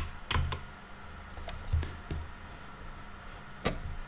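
A couple of last computer keyboard keystrokes just after the start, then quiet room tone with a low hum, broken by one sharp click near the end.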